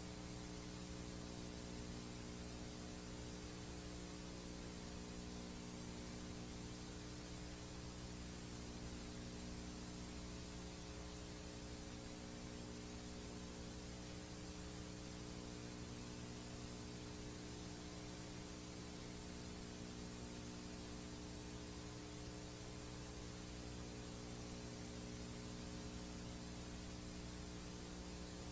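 Steady hiss of a VHS tape playing back a blank stretch, with a low electrical hum and its overtones running underneath.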